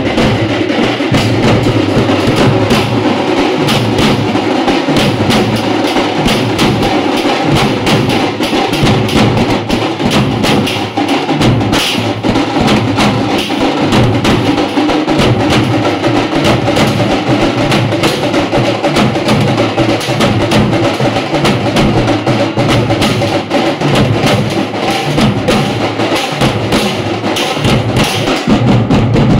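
A troupe of dappu frame drums (dappulu) beaten with sticks together in a loud, fast, unbroken rhythm.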